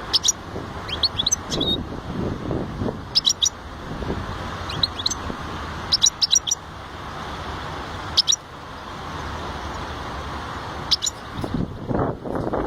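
A small finch chirping in short clusters of sharp, high notes every second or two, over a steady low background noise.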